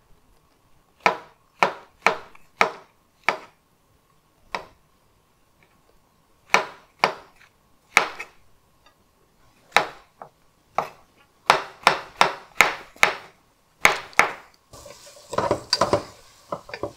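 Chef's knife slicing white button mushrooms on a wooden cutting board: single chops knocking on the board, spread out at first and coming quicker about eleven seconds in. Near the end, diced onions sizzle in oil in a pan while a wooden spatula stirs them.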